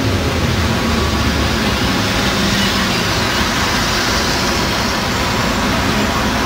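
Diesel buses and a van driving past on a wet road: steady engine hum with continuous tyre hiss from the wet tarmac.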